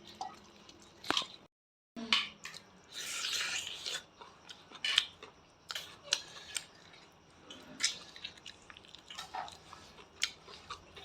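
Kitchen handling sounds: scattered clinks and knocks of utensils against pots and dishes, with a short hissing rush about three seconds in. The sound drops out completely for half a second near the start.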